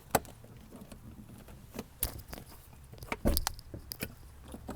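Metal knocks and rattling from a pry bar being worked against a cab-over truck's under-seat engine access panel to prop it open: single sharp clanks about a quarter-second and two seconds in, then a quick cluster a little past three seconds.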